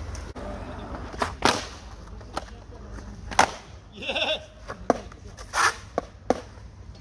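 Skateboards on concrete: wheels rolling with a low rumble, broken by several sharp clacks of boards popping and landing.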